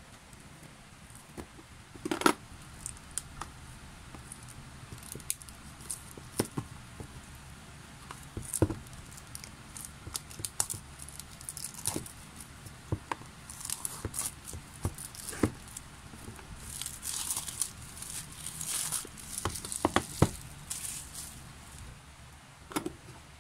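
Plastic shrink wrap being torn and crinkled off a boxed album, with scattered sharp clicks and taps from handling. The crinkling is densest and most continuous a little past the middle.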